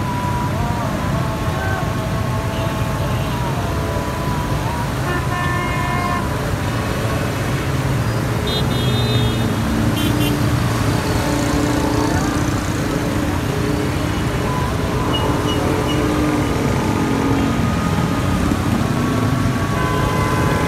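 Traffic wading through a flooded street: a steady wash of water and engine noise, with car horns tooting a few times, around five seconds and nine to ten seconds in.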